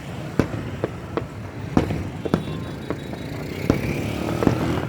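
Fireworks shells bursting in quick, irregular succession, about two sharp bangs a second, over a steady low rumble of traffic.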